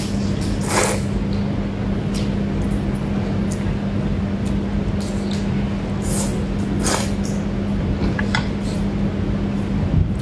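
Wet eating noises, a few short smacks and slurps of a person eating, over a steady low electrical hum and hiss.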